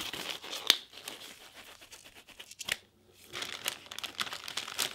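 Gloves being handled and unwrapped: plastic packaging crinkling and rustling, with a few sharp clicks.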